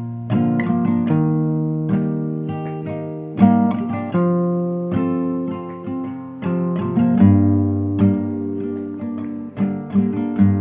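Acoustic guitar intro: single notes and chords picked at a relaxed pace, each note ringing on and fading.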